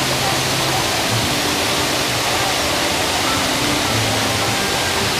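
Steady rush of artificial waterfalls splashing off a rockwork cliff into a lagoon, with music playing faintly underneath.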